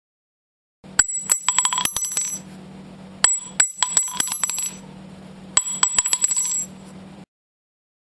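Metal cartridge case dropped and falling, three times: each drop a sharp clink followed by several quicker bounces with a high metallic ring, lasting about a second and a half.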